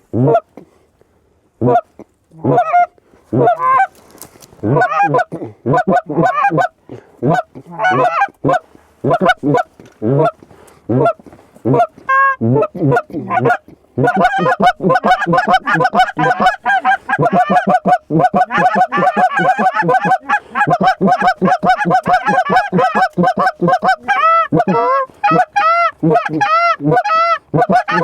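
Canada goose honks and clucks, spaced out at first, then a rapid, unbroken run of calls from about halfway through.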